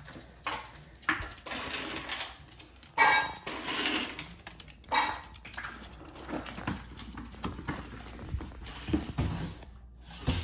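A beagle's claws clicking on a hardwood floor, mixed with a person's footsteps. A few louder scuffs and knocks come about a second, three seconds and five seconds in.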